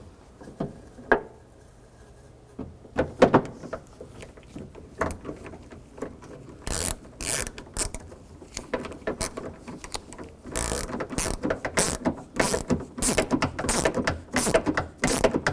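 Socket ratchet clicking in rapid runs as a door-handle mounting bolt is run in, mostly from about six seconds in, with a couple of separate knocks earlier.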